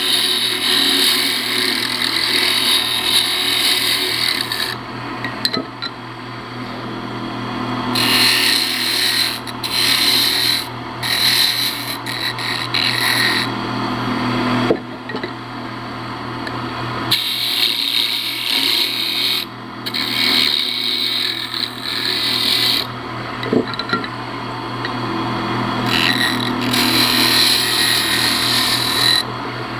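Wood lathe running, with a hand-held turning tool cutting into a spinning ash spindle in repeated passes of a few seconds each, separated by brief pauses, over the steady hum of the lathe.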